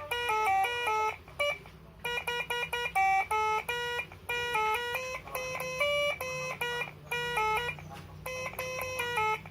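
Multi-trumpet telolet bus horn, driven by its button module, playing a quick melody of stepped horn notes. The notes come often two at once, in short phrases with brief breaks between them.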